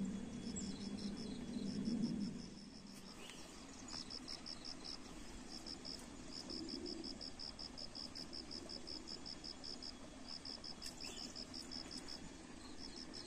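An insect chirping: a high, rapid, even train of pulses that breaks off for short pauses and starts again. A low hum sounds underneath for the first two seconds or so.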